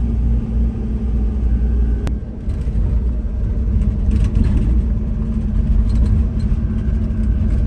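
Highway coach bus driving, heard from inside its cabin: a steady low engine and road rumble with a constant hum. A single sharp click sounds about two seconds in.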